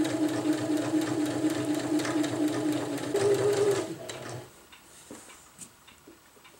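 Domestic sewing machine stitching a seam through cotton fabric: a steady hum with rapid needle ticks that speeds up for a moment and then stops about four seconds in. A few faint clicks follow.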